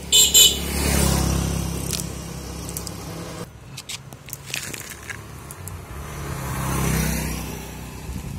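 Two motor vehicles passing on the road, each swelling and fading over a few seconds, one about a second in and one near the end. Underneath are the rustle and light clinks of a cast net's lead-weighted chain being shaken out onto asphalt, with a brief loud clatter right at the start.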